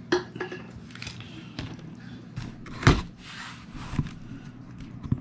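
A dagger blade slitting the clear packing tape along a cardboard box's seam, with scratchy cutting and several knocks from handling the box. The loudest is a sharp knock just before three seconds in.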